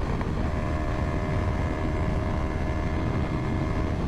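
Sport motorcycle engine running at a steady cruising speed, its pitch holding constant, over heavy wind and road rumble.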